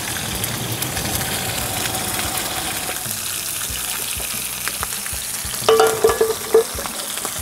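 Mackerel frying in oil in a nonstick frying pan on a camping stove, a steady sizzle. Near the end comes a brief ringing scrape as the pans are shifted on the stove grate.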